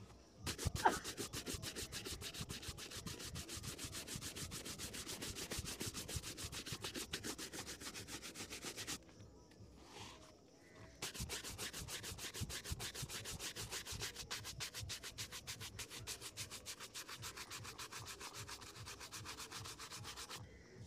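A bristle shoe brush scrubbed rapidly back and forth over a polished leather shoe, buffing it to a shine. The strokes stop for about two seconds midway, then start again.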